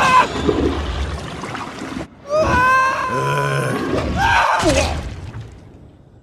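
Cartoon characters screaming over splashing water, with several high, arching cries; it fades out near the end.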